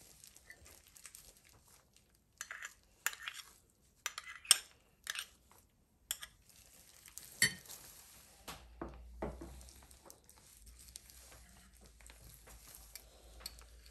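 A metal spoon clinking and scraping against a ceramic bowl in a series of short taps, the sharpest about four and a half and seven and a half seconds in.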